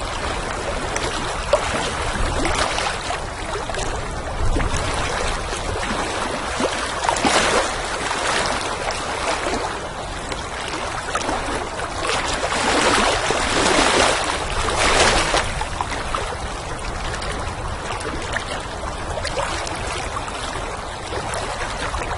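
Water lapping in small waves with wind blowing, the splashes swelling every few seconds over a steady low rumble of wind.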